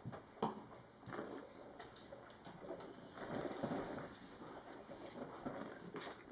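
A taster slurping and swishing a mouthful of white wine, with irregular sucking, gurgling bursts. A sharp click about half a second in.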